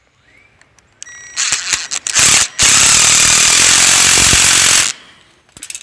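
Cordless impact driver turning a bolt through a steel bird-cage bar while locking pliers hold the nut underneath. It starts with a few short bursts, then hammers continuously for about two seconds and stops abruptly.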